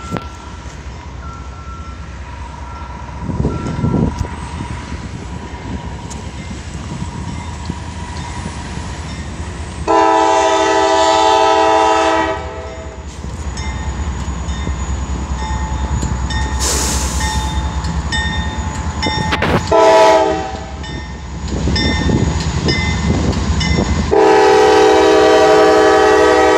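Norfolk Southern diesel locomotive horn blowing three times: a long blast about ten seconds in, a short one about twenty seconds in, and another long one starting near the end. Under it, the locomotives' engine rumble grows as the coal train draws near and passes.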